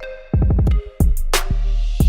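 Hip-hop style background music: heavy booming bass-drum hits, sharp snare or hi-hat strikes and sustained synth tones.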